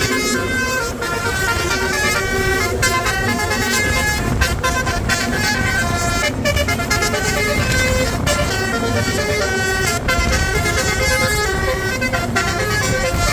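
Bus basuri horn, a multi-tone musical air horn, playing a stepping melody of held notes over the rumble of the bus and road.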